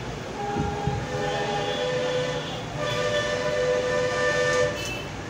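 A horn sounds two long blasts, each a steady chord of several tones lasting about two seconds, over a low background rumble.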